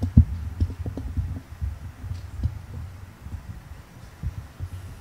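Irregular low thuds and rumble picked up by the microphone, with no speech. The loudest thud comes about a quarter second in, and the thuds thin out and fade toward the end.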